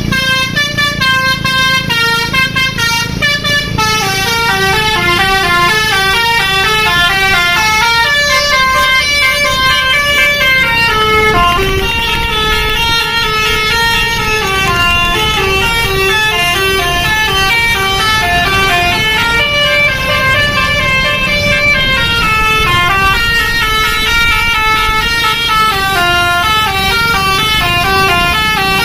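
Basuri multi-tone 'telolet' bus horn playing a long, loud melody of quick stepped notes, its phrases repeating, over a low rumble.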